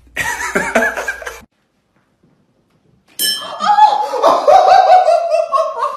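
People laughing and talking, in two bursts: a short one at the start and a longer, louder one from about three seconds in, with a second and a half of silence between them.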